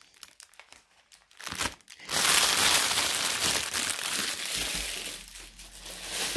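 A small plastic bag of diamond painting resin drills crinkling as it is handled close to the microphone. It is faint with a few light ticks at first, turns loud and dense about two seconds in, and fades out over the last couple of seconds.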